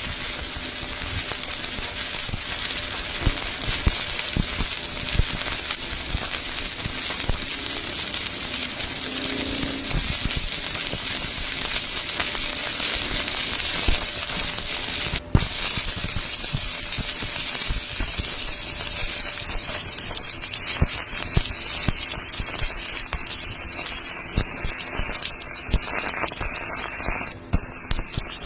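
Electric welding arc crackling and sizzling steadily, a dense run of small pops over a hiss, cutting out briefly twice.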